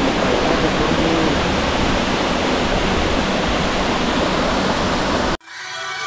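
Steady rushing of a waterfall pouring into its rock pool. It cuts off abruptly about five seconds in, and electronic music fades in.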